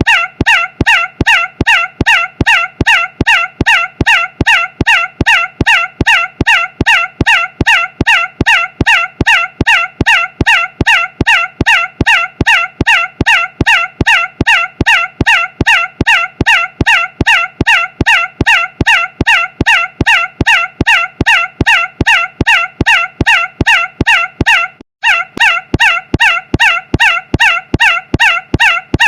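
A short, loud, squawk-like call repeated identically about three times a second, plainly one clip looped over and over, with a brief break about 25 seconds in.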